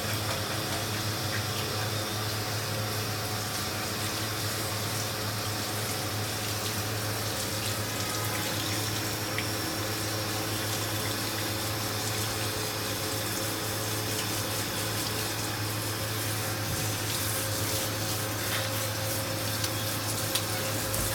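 Water spraying steadily from a handheld shower sprayer onto a wet dog's coat and splashing on a stainless steel grooming tub, with a steady low hum underneath.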